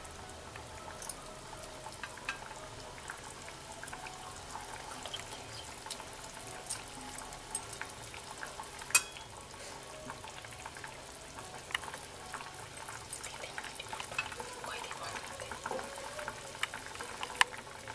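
Okra and potato curry simmering in a wok, with a steady faint bubbling and scattered small pops from the gravy. One sharp click about nine seconds in.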